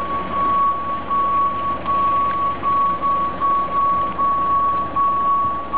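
Telescopic handler's warning alarm beeping: long, even, high-pitched beeps with short gaps, about one every 0.8 seconds, over the machine's engine running.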